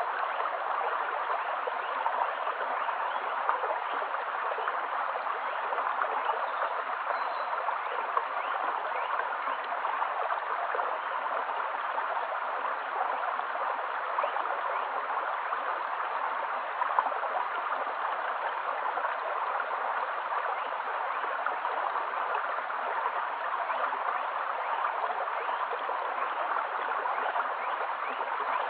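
Shallow stream flowing steadily over a pebble bed: a constant rush of water full of small gurgles and splashes.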